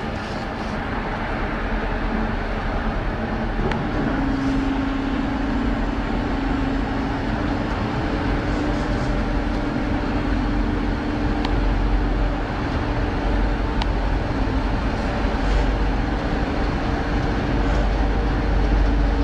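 A fast ferry's engines and propulsion running as it gets under way, with its wake churning: a steady rumble and hiss. A steady hum comes in about four seconds in.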